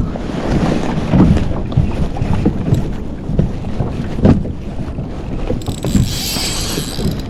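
Wind buffeting the microphone and water slopping against a kayak hull, with scattered knocks. A brief high hiss about six seconds in.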